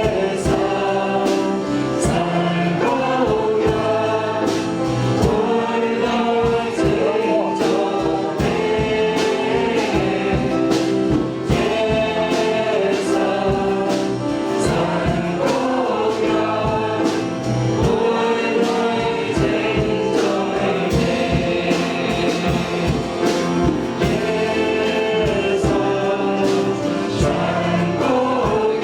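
A group singing a worship song over band accompaniment with a steady drum beat.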